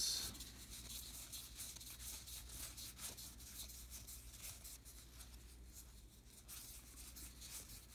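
Topps Heritage baseball cards being slid across one another in the hands as a stack is fanned through: faint, soft rubbing and light ticks of card stock.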